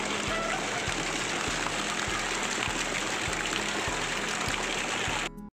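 Outdoor fountain jets spraying and splashing, a steady rushing hiss of water, with a soft low thump repeating about every half-second. The sound cuts off abruptly just before the end.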